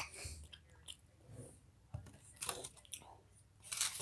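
A person chewing a mouthful of cheese close to the microphone: irregular short smacking and clicking mouth sounds.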